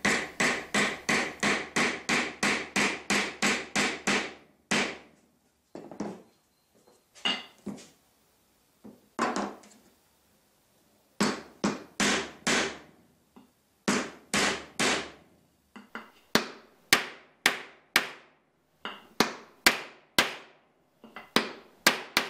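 Steel-headed Japanese hammer tapping the two members of a wooden halving joint down into each other, driving the joint together. A quick, even run of taps, about three a second, for the first four seconds, then scattered single taps and short groups of taps, some struck through a scrap block of wood.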